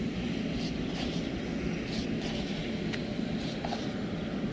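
A steady low rumble in the background, with faint soft crackles from hands working dry, crumbly fish-bait powder in a plastic bowl.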